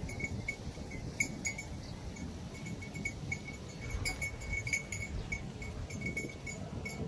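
Cattle chewing and crunching chopped banana stem and banana leaves in a concrete trough: irregular munching with small clicks. A short high note repeats over and over behind it.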